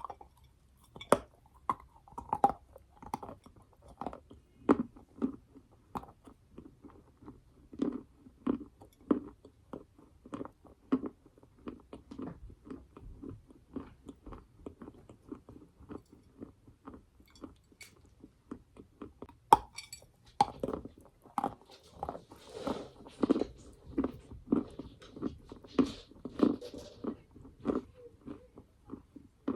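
Close-up biting and crunchy chewing of dry lumps of edible clay and chalk, a steady run of short crunches. About two-thirds of the way through comes one sharp snap of a bite, after which the crunching grows denser and brighter.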